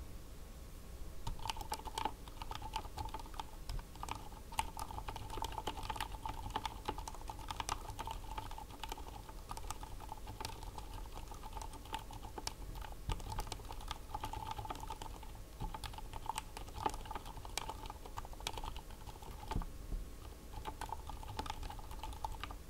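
Typing on a RAMA WORKS M60-A 60% mechanical keyboard fitted with Aliaz Silent Tactile 60g switches: a continuous run of quiet key presses that starts about a second in, with a brief pause near the end.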